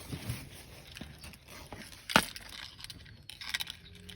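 Fishing tackle being handled while the line is re-rigged: a sharp click about two seconds in, then a few quicker, lighter clicks near the end.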